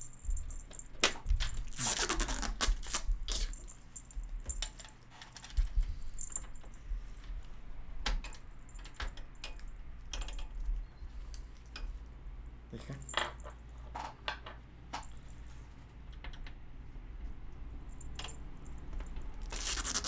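Steel and plastic PC case being handled: scattered light metallic clicks and clinks, with a few short scraping rustles, the loudest about two seconds in.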